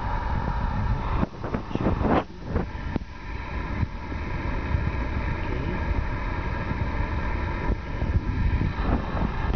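A steady low rumble with a faint hum runs throughout. About one to two and a half seconds in come a few sharp clicks and scrapes of an English bulldog puppy's teeth on the hard plastic of a toy ride-on firetruck.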